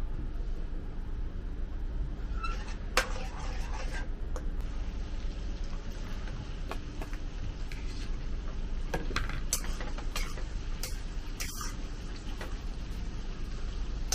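Pork belly and aromatics (ginger, garlic, Sichuan peppercorns, star anise, dried chilies) sizzling steadily in oil in a wok, being fried until fragrant. A metal spatula knocks and scrapes against the wok a few times, mostly in the second half.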